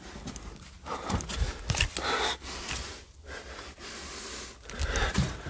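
A person breathing close to the microphone in uneven, noisy breaths, with a few soft handling knocks.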